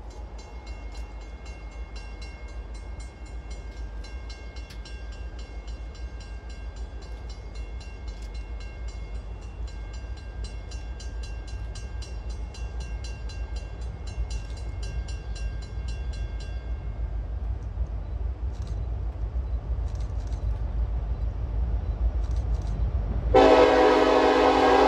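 Diesel freight locomotives approaching, their low rumble growing steadily louder, while a high steady ringing goes on and stops about two-thirds of the way in. Near the end a loud multi-note air horn blast starts and is still sounding at the close.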